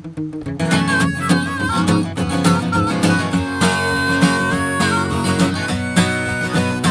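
Instrumental break of a folk-country song: acoustic guitar strumming chords while a harmonica plays the melody.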